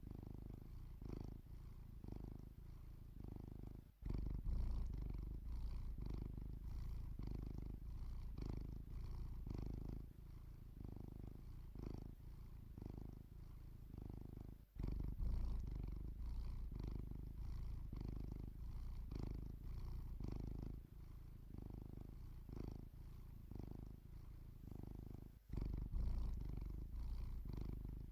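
Domestic cat purring steadily, the low rumble swelling and easing in an even rhythm with its breathing, with three brief sudden drops along the way.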